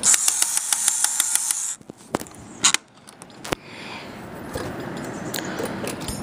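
Small plastic toy train's mechanism clattering rapidly, about eight clicks a second, for roughly two seconds before it stops. A few separate sharp clicks follow, then a low rustle of plastic being handled.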